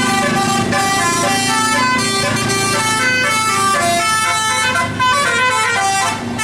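Bus's multi-tone musical air horn (telolet) playing a fast melody of short stepped notes without a break, over a steady low rumble.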